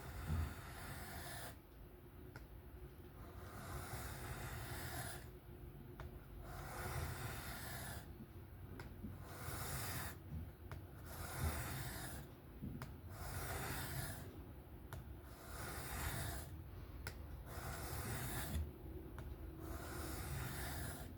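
Steel knife edge stroked freehand across a 1200-grit sharpening stone: a rhythmic scraping swish about every two seconds, roughly ten strokes in all. The blade is being honed at its existing angle to raise a burr.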